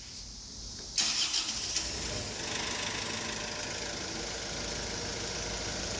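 Isuzu four-cylinder common-rail diesel engine of a forklift being started: it catches suddenly about a second in and settles into steady running.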